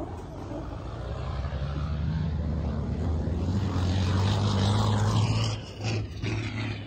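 Dakar rally race truck's diesel engine running hard at a steady pitch, growing louder over about five seconds as it approaches, then dropping away.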